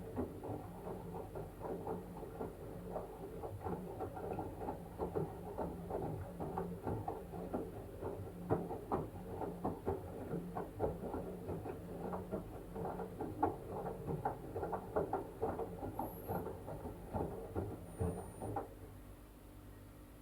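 LG washing machine's drum tumbling a wet blanket during the wash, with water sloshing and splashing in a quick, irregular patter over a low motor hum. The tumbling stops near the end, leaving only the hum.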